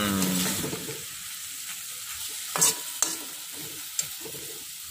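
Metal spatula stirring and scraping shredded tuna around a wok over a steady sizzle of hot oil, with a few sharp clinks of the spatula against the pan around the middle and near the end.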